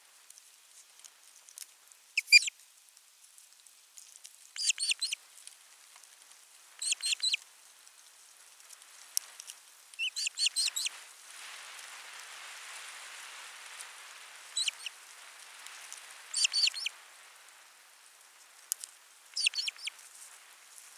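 Osprey calling: short bursts of high, whistled chirps, a few quick notes each, repeated about every two to three seconds. A soft rushing noise swells and fades about halfway through.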